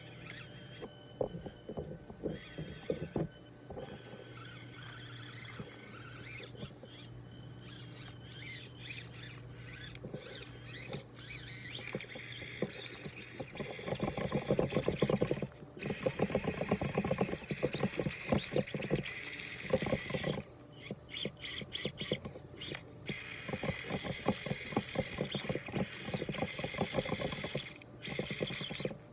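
Axial SCX24 1/24-scale RC crawler climbing over rocks: its small electric drivetrain whines while its tyres and chassis click and rattle against the stone. Sparse at first, it gets louder and busier about halfway through.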